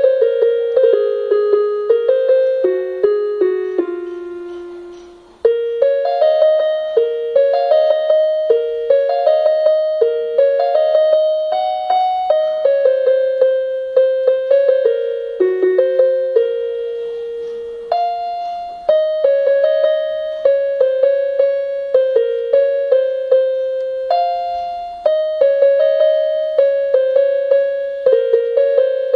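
Electronic keyboard on a piano voice playing a slow melody one note at a time, each note struck and left to decay. The playing trails off to a brief pause about five seconds in, then picks up again.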